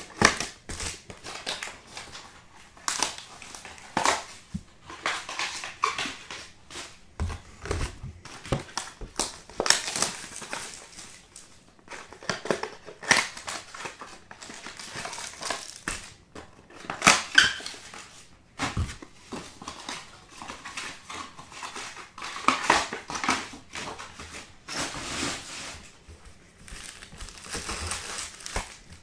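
Cardboard trading-card hobby box being opened and its foil-wrapped card packs handled and pulled out. The wrappers and cardboard give irregular crinkling and rustling with scattered sharp crackles.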